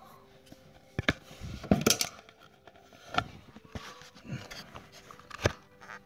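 Sharp plastic clicks and knocks from a washing-machine drain pump being handled and its snap tabs worked apart: a few separate clicks, with a quick cluster about two seconds in and another loud one near the end.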